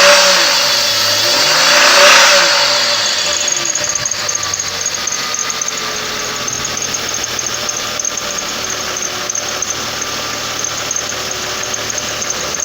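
2006 Chevrolet Trailblazer's 4.2 L Vortec inline-six revved twice, then settling into a steady idle about three seconds in, with a high-pitched squeal running over it. The engine shows no obvious knock. The owner suspects the squeal comes from a failing water pump.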